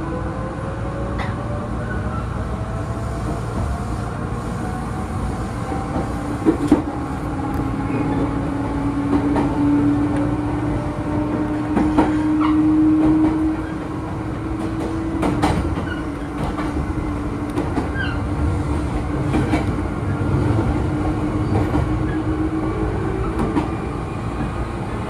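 Meitetsu electric train heard from the cab as it pulls away. Its traction motors whine, rising in pitch as it gathers speed and then holding a steady tone. Scattered clacks come from the wheels passing over rail joints and points.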